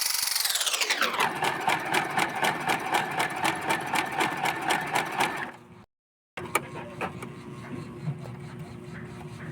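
Portable sewing machine stitching with a rhythmic clatter of about three stitches a second. It is sewing a long, tight-tension gathering stitch to make ruffles, and it stops about five and a half seconds in. After a brief silence there are faint handling clicks.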